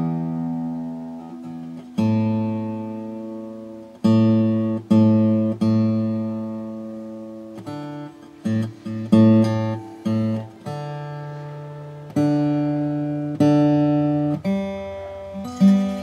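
Steel-string Seagull S6 GT acoustic guitar being tuned up to pitch after a restring: single strings are plucked one at a time, about a dozen times, and each is left to ring and fade. Near the end one ringing note rises in pitch as its tuning peg is turned.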